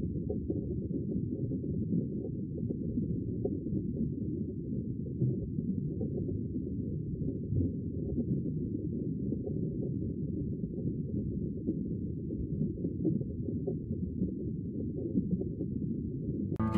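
Steady, muffled low rumble of water noise picked up by an underwater camera's microphone inside its waterproof housing, with nothing above a low pitch getting through.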